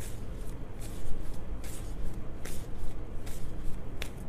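Tarot deck being shuffled by hand: a string of uneven papery swishes, with a sharp click near the end.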